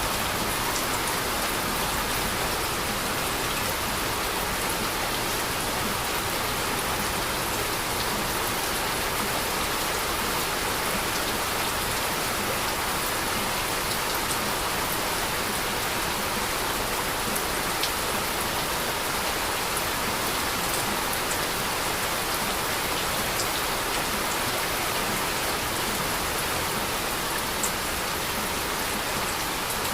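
Heavy rain falling steadily: an even hiss with scattered raindrop ticks and no thunder.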